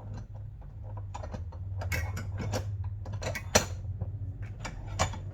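Hands working a bicycle tyre's bead back over the wheel rim: irregular clicks, knocks and rubber creaks, with a sharp click about three and a half seconds in.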